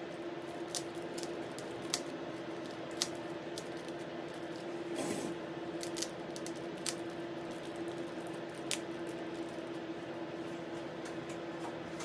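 Cellophane-wrapped chocolates crinkling, with scattered small clicks, as they are handled and set on a tray. A steady hum runs underneath.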